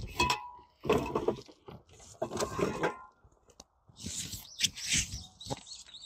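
Handling noises at a wooden storage bed platform: a panel and stored items being moved, giving clatter, knocks and rustling in three or four separate bouts, with a brief squeak just after the start.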